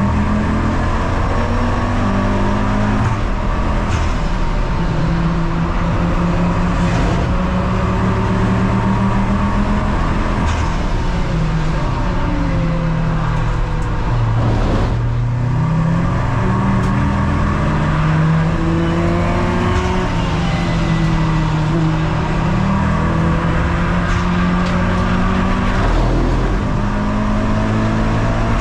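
Race car engine running hard on track, its pitch climbing and then stepping down again and again as it works through the gears.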